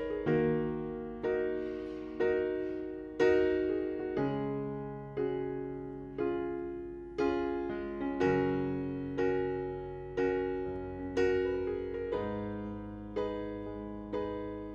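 Background piano music: slow, gentle chords struck about once a second, each one dying away before the next.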